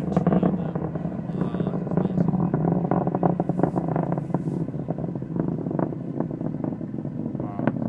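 Distant roar of a Delta IV rocket in ascent: a steady low rumble peppered with irregular crackles.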